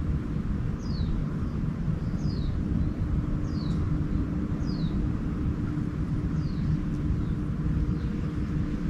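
A songbird repeating a short, high, downward-slurred note five or six times, roughly once every second or two, over a steady low rumble with a constant hum.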